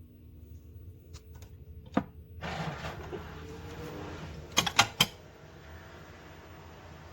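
Mini countertop dishwasher being handled and run: a sharp click about two seconds in, then a rush of steady running noise, three quick clicks a little before the five-second mark, and an even hum of the machine after.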